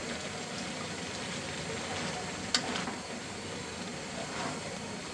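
Taro flowers boiling in a pan on the stove, a steady bubbling hiss, with a sharp click about two and a half seconds in and fainter ones later.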